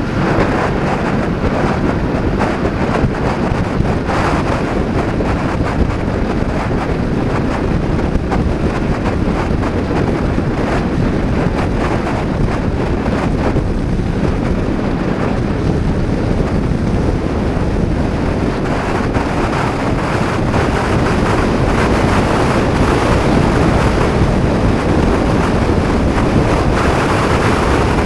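Heavy wind buffeting an action camera's microphone on a moving Honda PCX 125 scooter, a steady rushing noise with the scooter's running and road noise underneath, growing a little louder about two-thirds of the way through.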